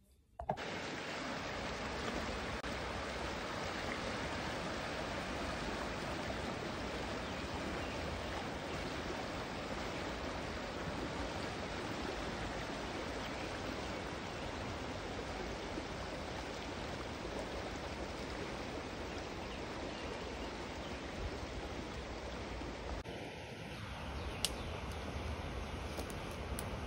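A creek running fast, a steady rush of water. About 23 seconds in it cuts to quieter outdoor sound with a brief tone and a low rumble underneath.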